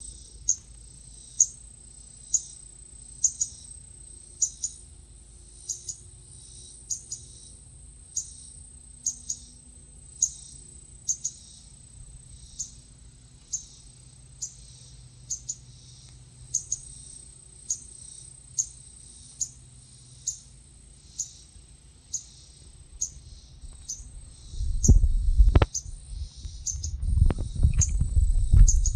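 A songbird chirping over and over, short sharp high chirps about once a second, over a steady high drone of insects. Near the end, loud low rumbling comes in.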